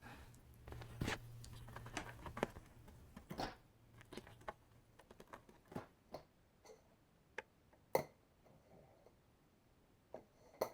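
Light, scattered clicks and taps of hands and small tools handling a laptop and its parts on a workbench, a few sharper ticks among them, with a faint low hum during the first half.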